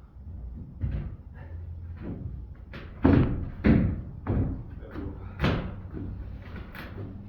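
Irregular wooden knocks and thuds as a plywood subfloor panel is lowered and worked into place on floor joists, about six impacts, the loudest three or four seconds in.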